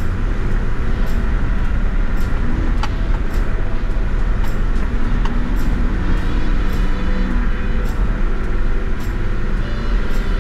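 Four-wheel-drive vehicle driving along a bush track: a steady low engine and road rumble, with faint ticks scattered through it.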